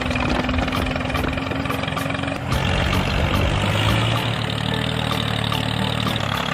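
A small motor running steadily. About two and a half seconds in, its tone shifts to a lower, louder hum.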